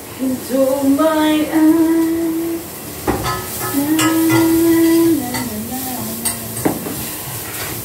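A woman singing long held, sliding notes of a song, with a few sharp clinks of a utensil against a cooking pot.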